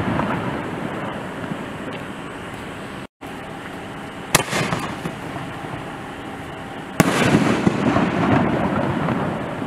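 6-inch Nishiki willow canister shells firing: a sharp bang about four and a half seconds in, then a louder bang about seven seconds in, followed by a couple of seconds of rushing, crackling noise as the willow stars fall and fade. A burst is already dying away at the start, and the sound cuts out briefly about three seconds in.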